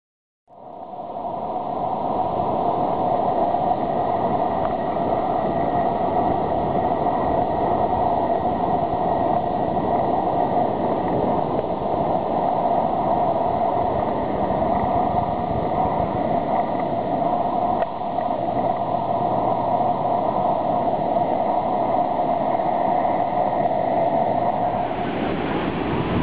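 Steady roar of ocean surf breaking on a beach, mixed with wind buffeting the camera microphone. It fades in about half a second in, and a steady droning note runs through it.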